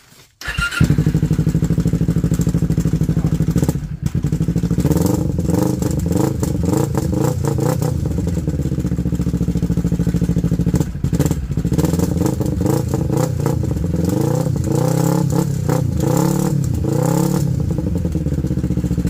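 Kawasaki Ninja 250 parallel-twin engine firing up through an aftermarket slip-on muffler about half a second in, then running and being revved up and down several times. The silencer insert is rattling around inside the muffler: not fitted right.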